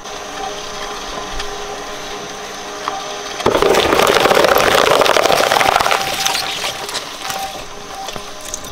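Twin-shaft shredder with steel cutter discs running empty, then about three and a half seconds in a cardboard box is caught and torn apart for about two and a half seconds of loud crunching and ripping, before the machine runs on more quietly.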